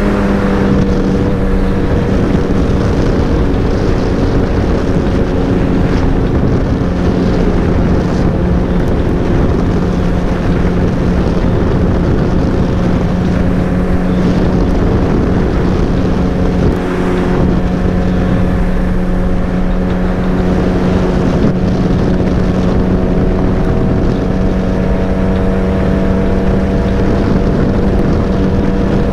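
Suzuki Hayabusa's inline-four engine running at a steady cruising speed, its note holding an even pitch, with wind rushing over the microphone.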